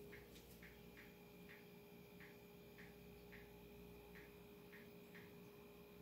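Faint unidentified steady hum with soft ticks, about two a second at uneven spacing.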